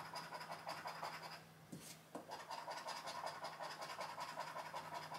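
Scratch card being scratched off in rapid, repeated back-and-forth strokes, pausing briefly about a second and a half in, then scratching on.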